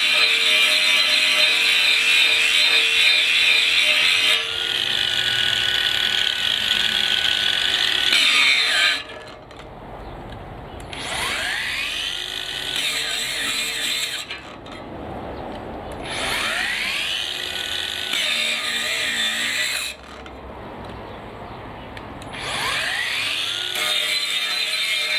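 ToolPRO 18V brushless angle grinder working steel under load, then cutting out abruptly three times and each time spinning back up with a rising whine. Its 1.5 Ah battery is running down and the grinder keeps stopping.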